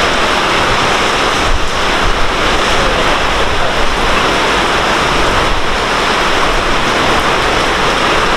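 Heavy rain pouring down, a loud, even rushing noise with no let-up.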